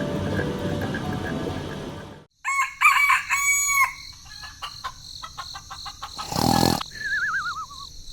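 Background music that cuts off about two seconds in, followed by a rooster crowing. Then come scattered clicks, a short burst of noise, and a wavering tone that falls in pitch near the end.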